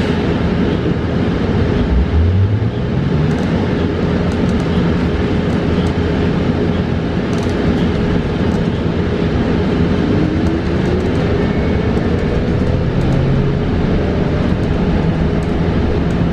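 Ride noise inside a New Flyer XE40 battery-electric bus on the move: steady road and tyre rumble with a constant hum. The electric drive's whine rises in pitch as the bus speeds up, about two seconds in and again around ten seconds.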